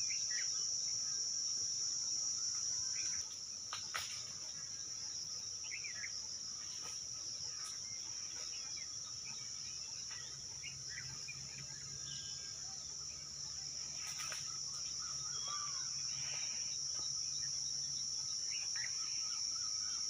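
Insects droning steadily at a high, even pitch, with scattered short chirps from other animals and a single sharp click about four seconds in.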